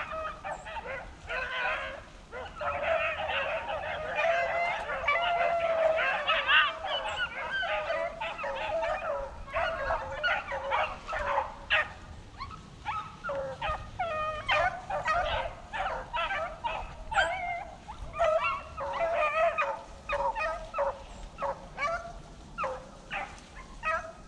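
A pack of rabbit hounds baying on the run of a rabbit, many voices overlapping densely through the first half, then breaking into separate, spaced-out cries.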